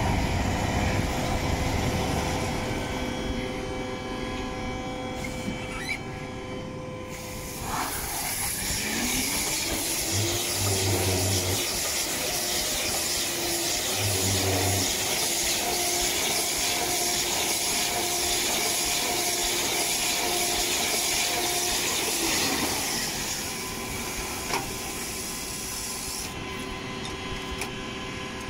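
Kuhn i-BIO+ round baler-wrapper running steadily, driven by a Landini 7-160 tractor with its PTO in 540ECO under light load. In the middle stretch there is a regular beat about once a second as the wrapping arms turn around the bale.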